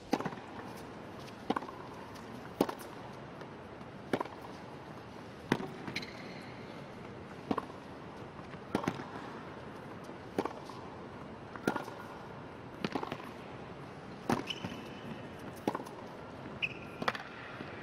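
Tennis ball struck by racquets back and forth in a long baseline rally: sharp pops about every second and a half over a low, steady arena hush.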